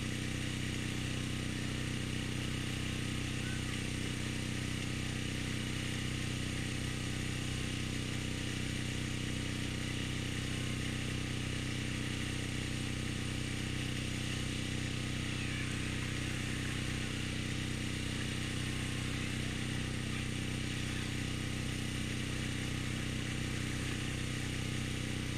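A small engine running steadily, a constant drone with a low hum and an even hiss over it.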